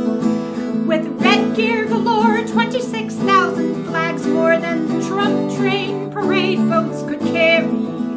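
Folk-ballad music: strummed acoustic guitar under a wavering melody line that changes note every half second or so.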